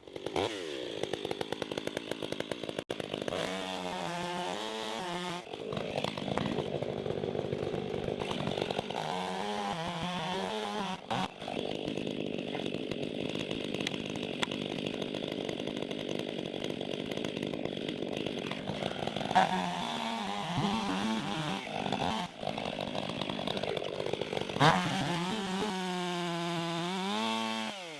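Gas chainsaw cutting through a suspended log at full throttle, the engine dropping in pitch and revving back up four times as it eases off and goes back into the cut.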